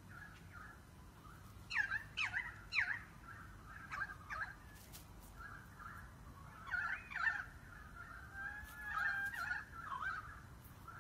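Poultry calling: a string of short, sweeping calls, several in quick succession about two seconds in and again around seven seconds, then a wavering held call near nine seconds.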